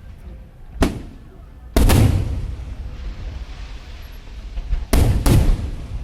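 Aerial firework shells bursting: a sharp bang about a second in, a heavier boom just before two seconds with a long echoing tail, then two more bangs close together near the end.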